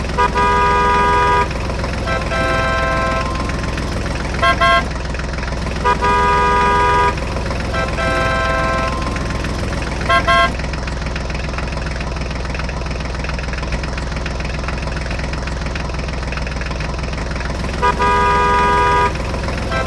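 Vehicle horn honking over a steady engine rumble: several blasts of about a second each, mixed with short double toots.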